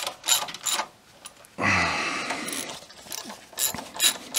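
Ratchet wrench clicking at about three clicks a second as it tightens the high-pressure fuel pump's mounting bolts. About a second in the clicking stops, a noise lasting about a second and a half follows, and the clicking starts again near the end.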